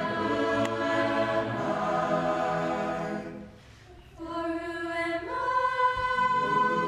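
Mennonite choir singing held chords. The singing drops away briefly about three and a half seconds in, then comes back with long sustained notes that step up in pitch about a second later.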